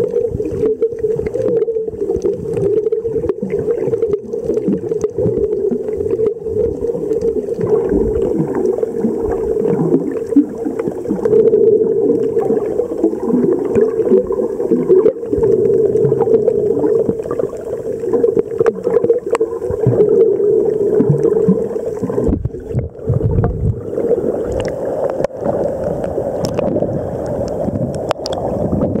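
Muffled underwater sound picked up by a submerged camera: a steady drone with moving water, rumble and occasional clicks. About 23 seconds in it changes to a broader sloshing as the camera rides at the water's surface among small waves.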